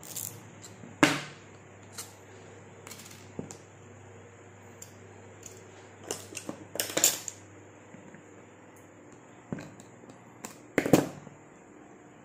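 Scattered clicks and knocks of a spinning reel being taken apart by hand, its spool and parts handled and set down on a wooden table. The loudest knocks come about a second in, in a cluster around six to seven seconds in, and near eleven seconds.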